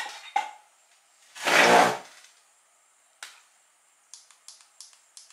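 Tools being handled over a transmission: two sharp clicks, a loud breathy whoosh about a second and a half in, then a single click and a quick run of about five light ticks near the end.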